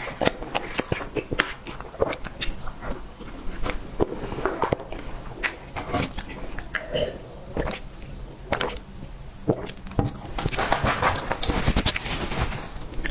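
Close-miked eating sounds: chewing with wet mouth smacks and many small clicks, growing busier near the end.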